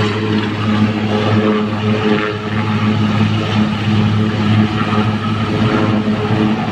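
Large military transport helicopter running at take-off power: a steady, loud drone of turbines and spinning rotors as it lifts off the grass near the end.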